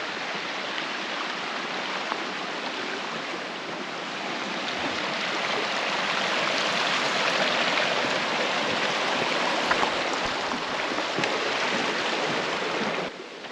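Mountain creek rushing over rocks, a steady dense rush of water that swells slightly midway and cuts off suddenly near the end.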